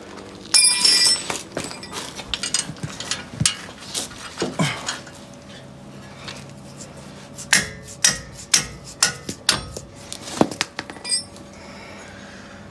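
Metal hand tools clinking and knocking as sockets and a wrench are handled and fitted onto the hub bearing bolts. There is a ringing metallic clink about half a second in and a quick run of sharp knocks and clicks in the second half.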